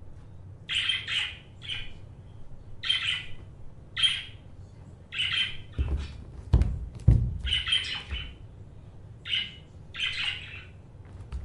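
A string of about a dozen short bird-like calls, each under half a second, with two low thumps just past the middle.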